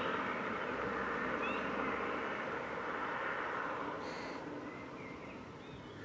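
Outdoor ambience: a steady hiss that slowly fades, with a few short bird chirps.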